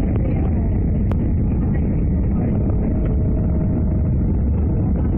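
Muffled, steady low rumble of an Airbus A319's cabin noise during descent, heard through a covered microphone, with a single faint click about a second in.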